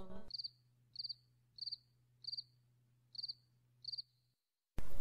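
A cricket chirping, about six short high chirps spaced less than a second apart, over a faint steady low hum. The chanting fades out at the start, and sound swells back in just before the end.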